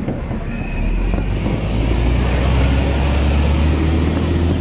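Aerial fireworks shells bursting at a distance: a rolling low rumble of overlapping booms that swells about a second in, with a couple of sharper bangs near the start.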